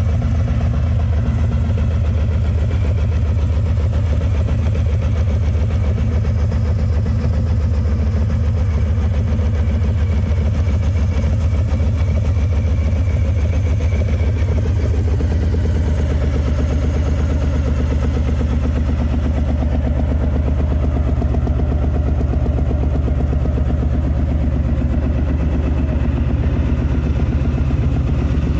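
Harley-Davidson Softail's V-twin engine idling steadily through an aftermarket two-into-one exhaust.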